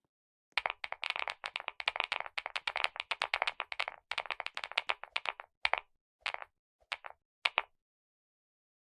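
Fast typing on a keyboard for about five seconds, then four single keystrokes about half a second apart.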